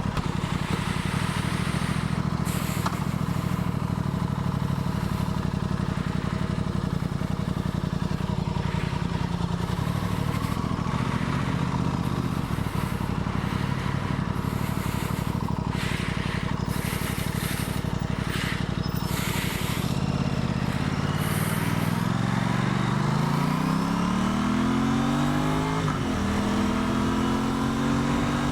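Aprilia Tuono 660 Factory's parallel-twin engine under way, holding steady revs for most of the time. About twenty seconds in it revs up through the gears: a rising pitch, a short drop at a shift near the end, then rising again.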